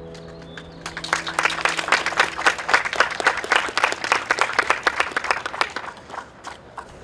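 Audience applauding at the end of a song: the last held chord of the guitars and keyboard dies away, then clapping breaks out about a second in and thins out near the end.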